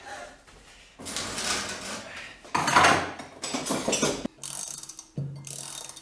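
Metal hand tools being handled and worked: several bursts of mechanical clicking and rattling, the loudest about halfway through.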